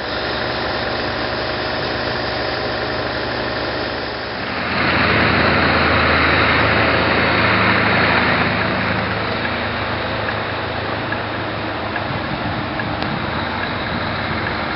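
A motor vehicle's engine running steadily. A louder rushing noise swells about four and a half seconds in and fades around nine seconds.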